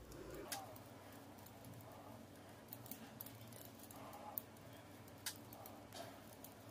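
Faint, sparse clicks of metal double-pointed knitting needles being worked by hand, a few light ticks spread over several seconds above a low steady hum.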